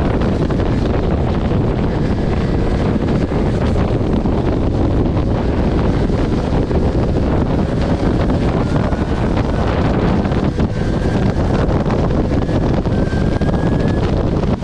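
Steady wind rushing over the microphone of a rider on a Kuberg electric dirt bike at about 50–65 km/h, with a few faint rising whines.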